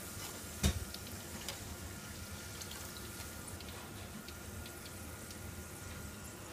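A metal utensil knocks once against a steel tray about two-thirds of a second in, followed by a faint steady hiss with scattered light crackles.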